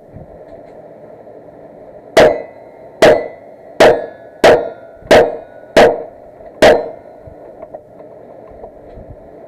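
Seven gunshots fired in steady succession, about 0.7 seconds apart, each very loud with a short echo. They are rounds fired at a cowboy action shooting stage.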